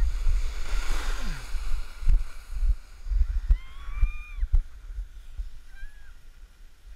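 Low wind and handling rumble on a GoPro's microphone, with dull thumps about twice a second. About halfway through comes a distant high-pitched shout held for about a second, and a brief shorter one near the end.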